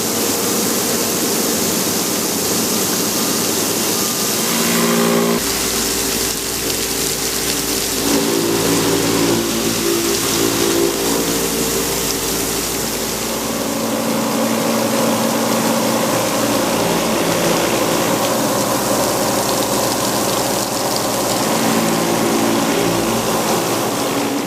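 Omag Blade5 CNC stone-cutting bridge saw running: a steady spray-like hiss with several motor tones that change pitch and switch on and off as the machine moves, one change about five seconds in and another about eight seconds in.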